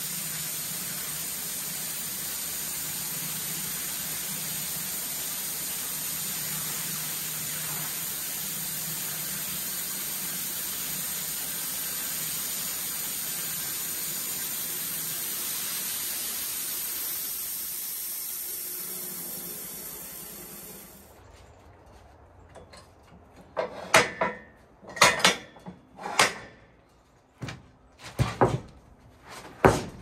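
Homebuilt sawmill running through a cut in white pine, a steady hiss over a low hum that winds down and stops about 17 to 21 seconds in. After a short lull, several sharp knocks follow, loud and irregular.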